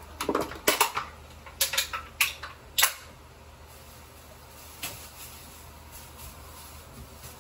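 A quick run of sharp clicks and knocks, about ten in the first three seconds, then one more a couple of seconds later, over a low steady hum.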